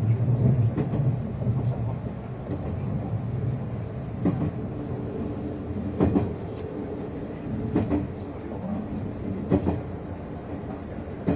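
Interior running sound of a JR 103-series electric multiple unit, heard inside the KuHa 103-170 driving trailer car: a steady rumble of the wheels on the rails with a sharp rail-joint clack about every second and three-quarters. The rumble is louder for the first two seconds, then eases to a lower steady level.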